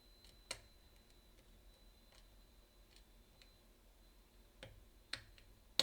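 Light clicks and taps of a lock-picking hook working the pins inside a Yale KM1 pin-tumbler padlock. The clicks are scattered and faint, with a sharper one about half a second in and a few more near the end.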